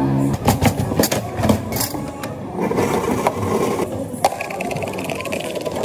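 Knocks and clicks of a blender jar and a plastic cup being handled at a steel cafe counter: a quick run of knocks early on, a short stretch of rustling noise, then one sharp click a little after four seconds in.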